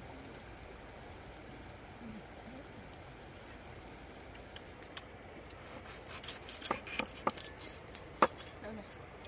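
Cleaver cutting through the crisp skin of a roasted pork head: a quick run of cracks and knocks over about two seconds near the end, the loudest a single sharp snap. Underneath is a steady hush of flowing river water.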